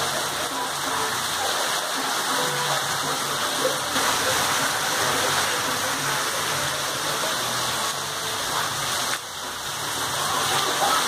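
Heavy rain falling steadily on a wet cobblestone street, an even wash of noise that dips briefly about nine seconds in.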